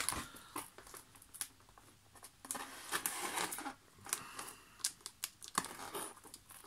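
Packing tape on a cardboard box being slit open with the point of a metal pen: irregular scratchy scraping and tearing of the tape, with scattered clicks and taps on the cardboard.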